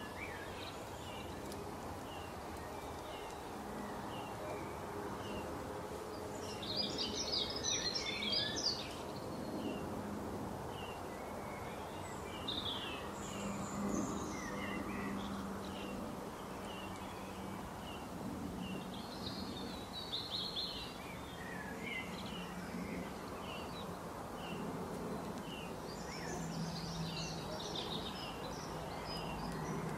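Birds chirping: short high notes repeated about once a second, with three louder bursts of rapid chattering, over steady background noise.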